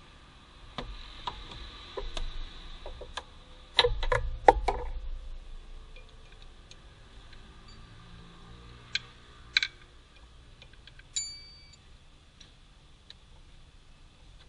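Scattered clicks and knocks of hand tools and parts being handled on a car engine during reassembly, with a louder cluster of knocks about four seconds in. A short metallic ring sounds about eleven seconds in, like a metal tool set down.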